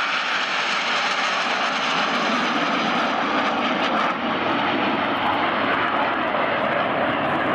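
Turbojet engines of a formation of Aermacchi MB-339 jet trainers flying overhead, a steady rushing jet noise.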